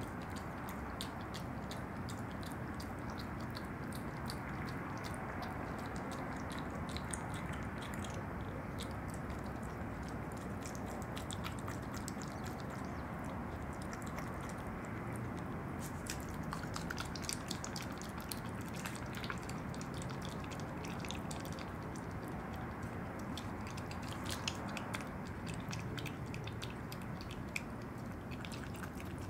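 An opossum chewing and smacking wetly on yogurt and soft fruit: many small, irregular clicks over a steady low hiss.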